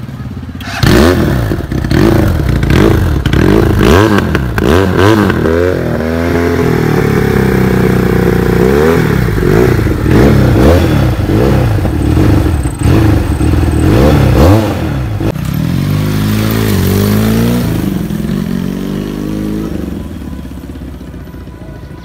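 Twin-cylinder engine of a Kawasaki Ninja 300-replica motorcycle revved in repeated quick blips through an aftermarket silencer. It then settles to a steady idle with a few lighter blips and fades near the end.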